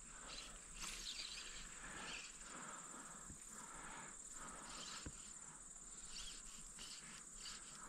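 Faint outdoor ambience: insects chirring steadily at a high pitch, with a few soft ticks and rustles.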